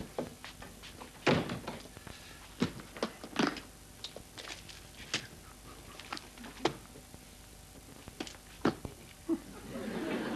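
A string of sharp knocks and thuds at irregular intervals, a dozen or so, with a short rustling stretch near the end.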